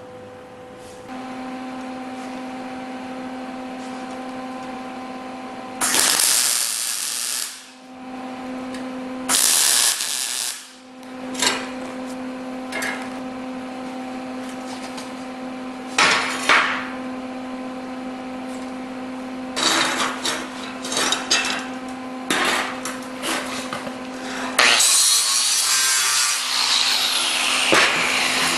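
Plasma-cut steel parts being handled, scraped and knocked on a steel welding table, over a steady machine hum that sets in about a second in. Two loud rasping bursts come near a quarter and a third of the way in, then clusters of knocks and scrapes, and a dense scraping noise near the end.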